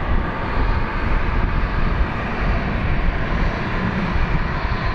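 Airbus A320-214's twin CFM56 turbofan engines on final approach to landing, a steady rushing jet noise, with wind rumbling on the microphone.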